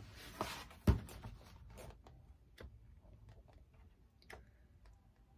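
Cross-stitch kit contents and packaging being handled: a short rustle, a soft knock about a second in, then a few scattered light clicks and taps.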